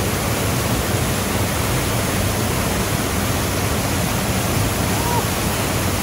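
Water pouring over a low concrete weir into a shallow river: a steady, unbroken rush of falling water.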